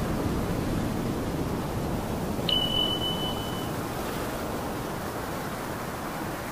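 A steady rushing noise, with a single high electronic beep about two and a half seconds in that holds for about a second. The beep is an intro sound effect that accompanies the channel logo's animation. The rushing noise fades away near the end.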